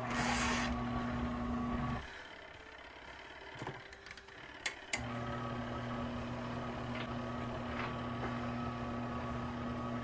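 Garatic mini twin-tub washing machine's wash motor running with a steady electric hum. The hum stops about two seconds in, with a few light clicks during the pause, and starts again about three seconds later: the agitator pausing and reversing direction during the wash cycle.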